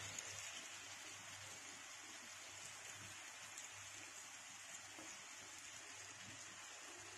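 Faint, steady sizzle of a thin masala paste frying in coconut oil on an iron tawa, as raw fish steaks are laid into it by hand.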